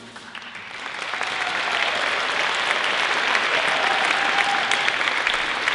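Concert-hall audience applauding after the band's final chord. The applause swells over the first second or two, then holds steady.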